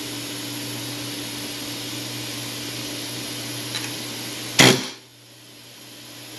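A single short burst from a pneumatic air hammer peening the low spot of a bent big-block Chevy roller camshaft to straighten it, about two-thirds of the way in, just after a light click. A steady machine hum with a high whine runs underneath.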